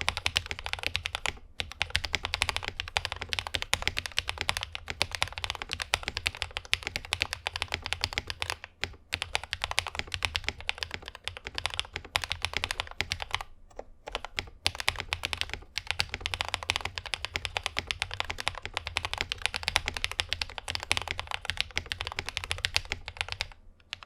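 Fast, continuous typing on a 60% mechanical keyboard with lubed Akko CS Rose Red linear switches in a polycarbonate plate, under PBT Cherry-profile keycaps. It is a dense run of thocky key strikes with a few brief pauses.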